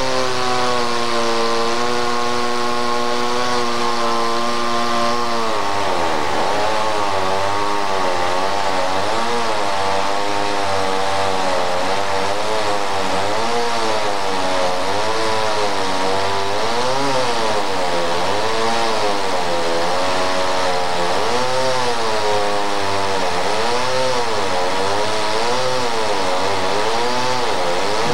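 Chainsaw engine running loud. It holds a steady pitch for about five seconds, then sinks and rises again and again as it is loaded and freed in the cut through a chestnut trunk.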